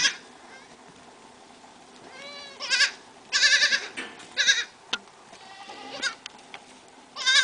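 Young goat kids bleating: after a quiet start, a run of about five high, wavering bleats from about two seconds in, some overlapping.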